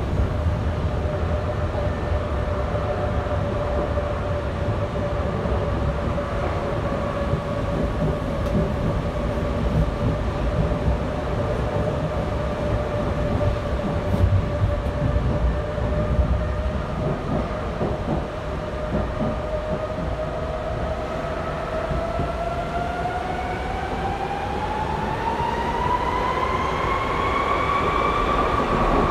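Berlin U-Bahn G1/1E small-profile train running, heard from inside the car: a low rumble from the running gear under a steady whine. Over the last several seconds the whine rises in pitch as the train picks up speed.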